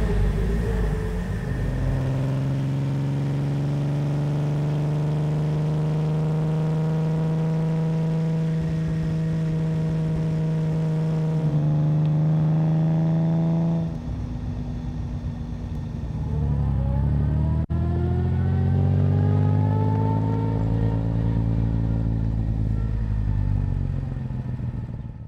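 Lancia Aurelia B24S V6 engine and exhaust while driving: a steady cruising note for about ten seconds, briefly a little higher, then after a dip the pitch rises under acceleration and eases back before the sound cuts off at the end.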